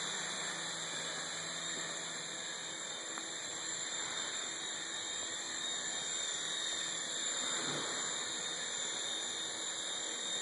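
Hoot electric coaxial RC helicopter hovering and flying, its small electric motors and counter-rotating rotors giving a steady high-pitched whine and buzz.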